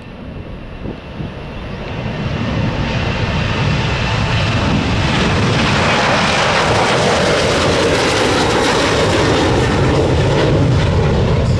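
Twin-engine Boeing 737 jetliner at takeoff thrust, lifting off and climbing past. The jet engine noise swells over the first few seconds and then holds loud, with a low rumble under a faint high whine.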